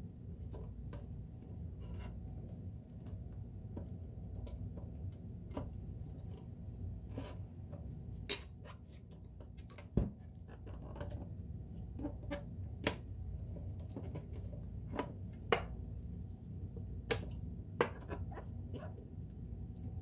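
Hard plastic and metal clicks and knocks as the hinged bottom cover on the free arm of a vintage Kenmore convertible sewing machine is handled and swung open, over a steady low hum. A sharp click about eight seconds in is the loudest, with a duller knock just after.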